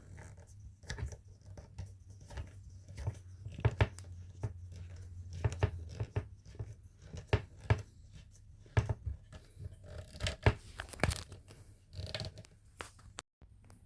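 A wooden chair leg being screwed back onto the chair, with irregular scraping, creaking and sharp clicks and knocks from wood and screw.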